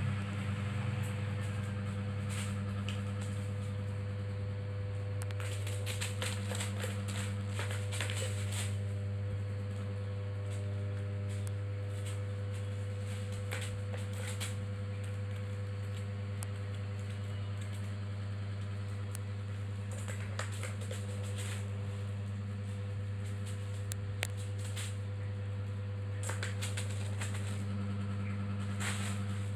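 A steady low hum throughout, with several short flurries of clicks and crackles from a kitten playing: balls rattling in a plastic ball-track tower toy and a plastic sheet crinkling.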